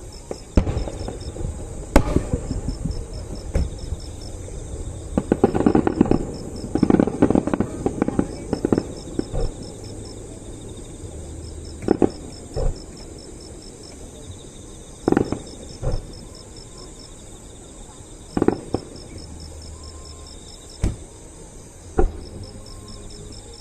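Fireworks bursting: a dense run of crackling bangs about five to nine seconds in, then single bangs every second or few. Crickets chirp steadily underneath.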